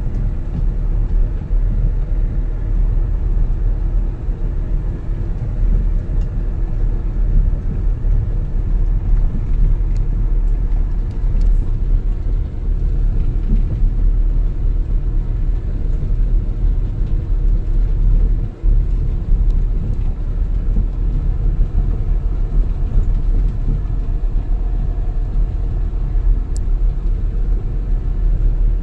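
Steady low rumble of a vehicle driving along an unpaved dirt road, heard from on board: engine and tyre noise.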